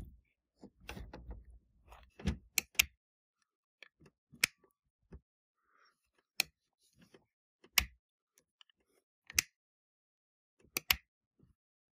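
Freshly oiled push buttons on a Severyanka-type knitting machine carriage being worked up and down, snapping into place with sharp clicks, about eight of them at irregular intervals, with soft handling noise of the carriage between.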